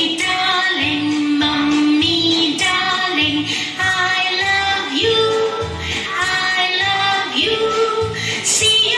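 A children's song playing: sung melody with long held notes over a steady bass beat that pulses about twice a second.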